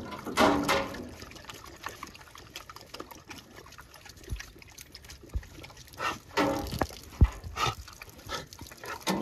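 Water trickling from a tap on a truck's dog box while thirsty bird dogs drink from the stream, with a dog whining twice: at the start and again about six seconds in.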